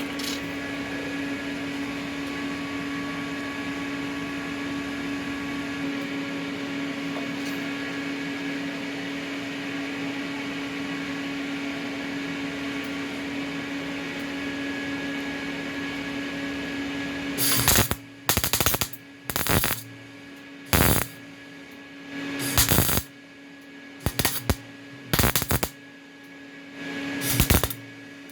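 Electric welder laying a continuous bead on a muffler, a steady crackle over the welder's hum, then from about two-thirds of the way in a string of short welding bursts with brief pauses between, the hum running on through them.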